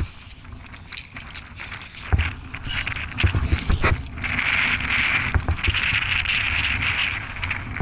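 Metal climbing gear on a trad rack clinking and jangling as the climber moves up a granite crack, with scuffs and dull knocks against the rock. A steady hiss sets in about four seconds in.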